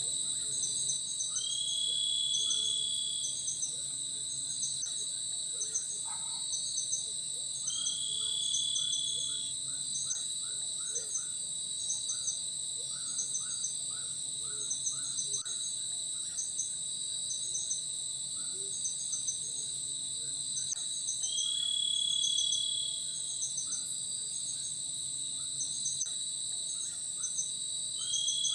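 Night-time tropical forest insect chorus: several insects trilling steadily at high pitch, with rows of short repeated chirps. A louder, clearer call of about a second rises out of it four times.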